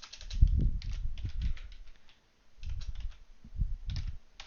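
Typing on a computer keyboard: two quick runs of key strokes with a short pause between.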